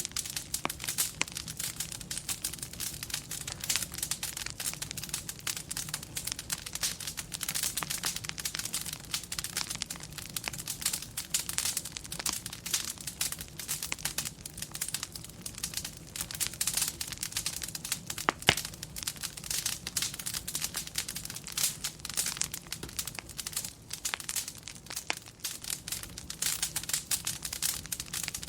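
Fireplace crackling, with dense irregular pops and snaps. There is one sharper pop about eighteen seconds in.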